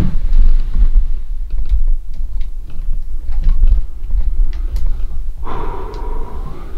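Handling noise from a handheld camera: a low rumble with scattered small clicks and taps as it is moved about. Near the end comes a short breathy sound, like an exhale.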